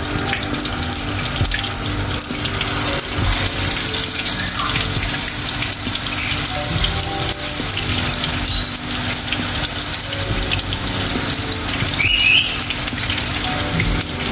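Minced-meat kebab patties shallow-frying in hot oil in a nonstick pan over a medium-low flame: a steady sizzling hiss with fine crackles.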